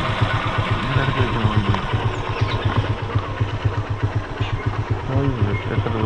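Honda Unicorn motorcycle's single-cylinder four-stroke engine running at low revs, with a steady, even beat of about a dozen firing pulses a second.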